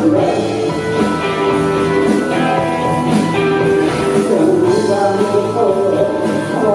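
Live rock band playing a song, with guitar, drums and a singer.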